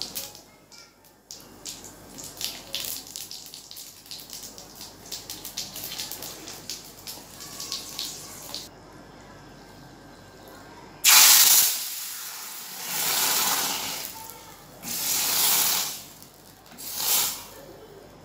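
Cumin seeds crackling in hot oil in an iron tempering ladle. About eleven seconds in, a sudden loud sizzle as the hot tempering (chhaunk) hits the cooked dal, followed by three shorter bursts of sizzling.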